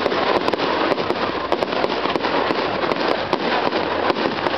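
Fireworks display: many aerial shells and stars bursting in quick succession, a dense, unbroken run of pops and bangs.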